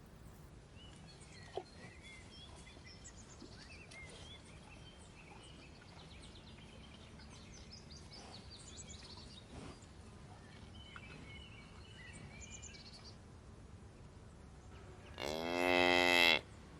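A cow mooing once, loud, for about a second near the end. Before it, faint high bird chirping comes and goes over a quiet pasture background.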